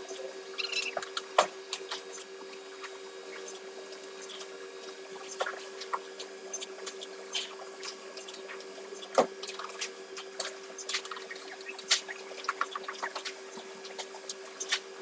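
Sliding-table panel saw running with a steady hum, while light clicks and knocks come from short wood bars being stacked and shifted on its table.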